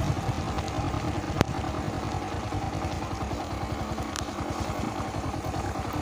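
Yamaha motorcycle engine running steadily under way, over a constant hiss of wind and road noise, with a sharp click about a second and a half in.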